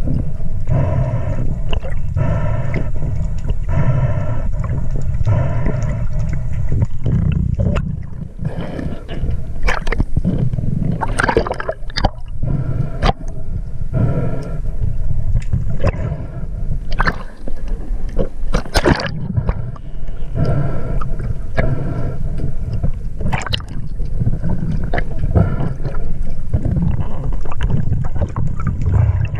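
Water gurgling and sloshing around the camera in the sea. For the first several seconds there is a rhythmic pulsing about twice a second, followed by scattered sharp splashes or knocks.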